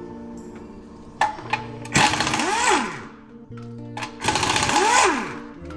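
Pneumatic impact wrench rattling in two long bursts, each spinning up and winding back down, with a couple of short blips before: bolts being undone. Background music plays underneath.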